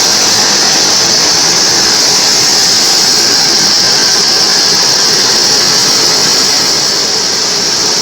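Homemade band sawmill running steadily, its blade sawing mahogany into thin boards, with a loud high hiss; the level dips slightly near the end.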